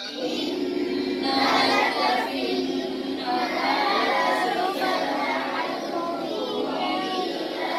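A group of voices, children among them, reciting a Quran verse together in unison in a slow chanted tarteel style, many voices overlapping slightly out of step. This is the group repeating after the teacher.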